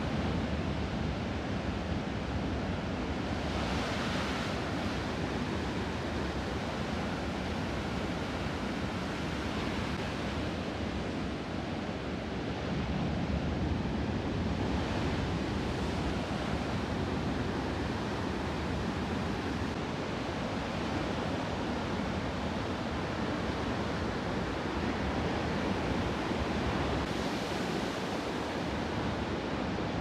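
Ocean surf: waves breaking and washing ashore in a continuous rush, with a few louder surges as bigger waves break.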